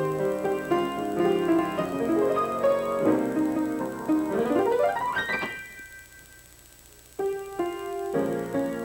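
Piano being played: a flowing passage of notes and chords climbs in a fast upward run about five seconds in, rests for about a second and a half, then resumes with chords.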